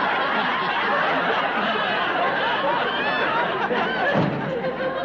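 Studio audience laughing, a long sustained wave of laughter that begins to die down at the end.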